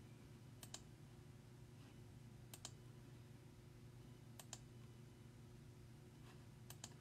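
Near silence with a low steady hum and a few faint clicks from a computer, mostly in close pairs, about every two seconds.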